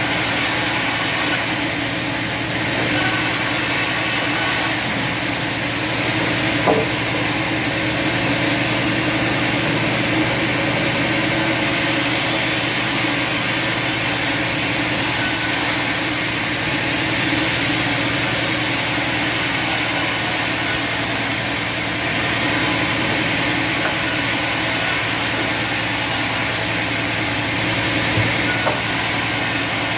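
Bandsaw sawmill running and sawing through wood: a steady cutting noise over the steady drone of the mill's motor, with a brief sharp knock about seven seconds in.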